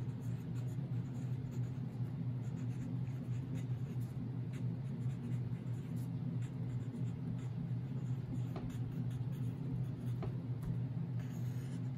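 Pen writing on paper held on a clipboard, a run of short scratchy strokes as words and a box are drawn, over a steady low hum.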